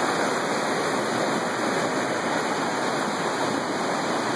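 A rocky creek rushing over stones in small cascades: a steady, even rush of water.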